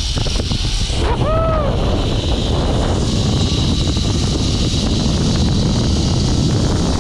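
Rushing wind buffeting the microphone while riding a zip line, with the trolley's pulleys running along the steel cable in a steady high whine that grows stronger partway through. About a second in there is a short rising-and-falling whoop.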